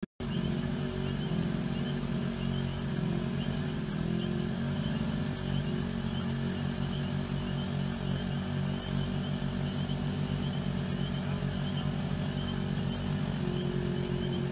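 Side-by-side UTV engines running steadily, the engine speed rising and falling slightly now and then.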